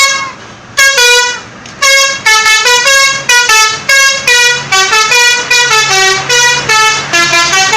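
Bus 'telolet' horn: a set of musical air horns playing a fast tune of short notes, about three a second, stepping up and down in pitch. A low steady hum joins about five seconds in.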